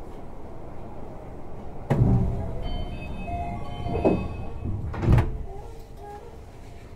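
Doors of a Tama Toshi Monorail 1000-series car closing for departure: a sudden start about two seconds in, a door chime of several clear tones, then the sliding doors shut with two sharp knocks, the louder near the end.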